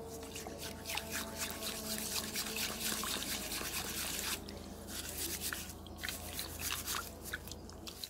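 A rusty padlock being scrubbed with a steel wool pad under water in a tub of murky electrolysis solution: splashing, dripping and scratchy rubbing strokes. The scrubbing is busiest from about one to four seconds in, then eases off.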